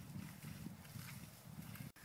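Soft, irregular hoofbeats of a Welsh cob foal trotting on grass pasture. The sound drops out briefly near the end.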